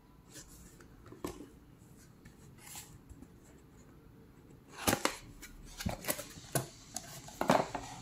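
Cardboard box being handled and opened: a few light taps and rustles, then a busier run of sharp cardboard clicks and scrapes from about five seconds in as the flap is lifted and the contents are pulled out.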